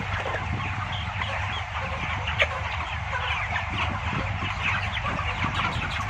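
A large flock of broiler chickens in a closed shed, clucking and peeping in many short overlapping calls over a steady low hum.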